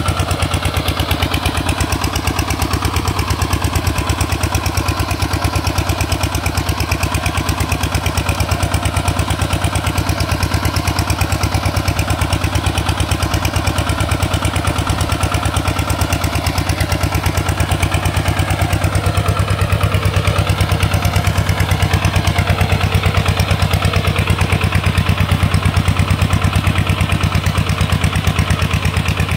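Hand tractor's Kubota RT140 Plus single-cylinder diesel engine running steadily with a fast, even firing beat.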